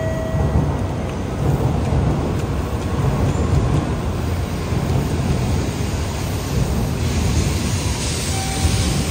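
N700A Shinkansen trainset pulling into the platform, a steady deep rumble of wheels and rushing air as its cars pass close by, with more hiss near the end.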